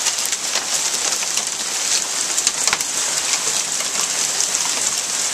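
A hailstorm: hail of about half an inch to an inch with heavy rain, pouring down in a dense steady hiss dotted with many small sharp clicks of hailstones striking the ground.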